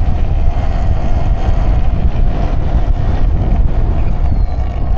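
Wind buffeting the microphone in a heavy low rumble, with a steady hum underneath.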